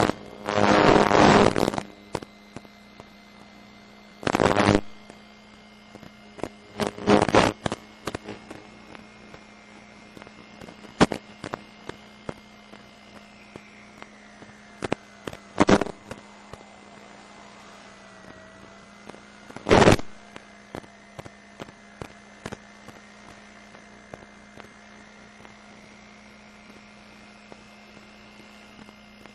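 Audio of an analog FPV video link: a steady hum under a faint whine that wavers slowly up and down in pitch, broken by several loud bursts of static and scattered crackles.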